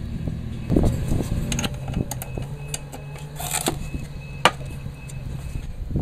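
Handling of a steel socket and hinge-pin tool: scattered metallic clicks and knocks, one sharp click about four and a half seconds in, over a steady low hum.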